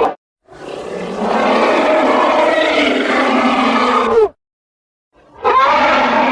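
King Kong's roar from the 1976 film: one long, loud roar of nearly four seconds that swells in and drops in pitch at its end. Another sound effect starts after a short gap near the end.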